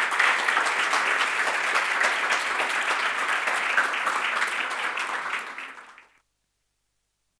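Audience applauding: dense clapping that thins out over its last second and stops about six seconds in.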